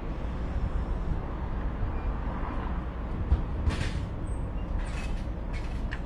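Steady low rumble of outdoor background noise, with a few short clicks and rustles about halfway through and near the end.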